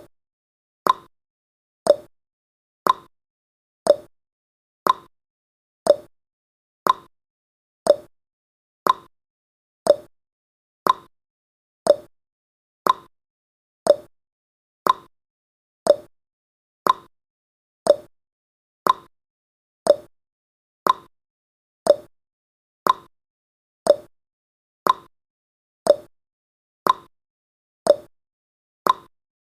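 Countdown timer sound effect: a short click once every second, each one dying away quickly, marking off the seconds.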